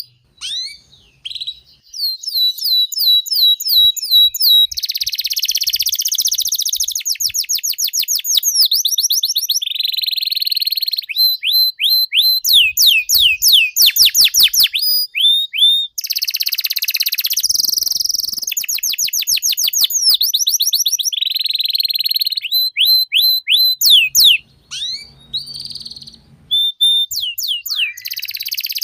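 Domestic canary singing a long song: rapid runs of high repeated chirps and fast trills alternating with buzzy rolls, with short breaks between phrases.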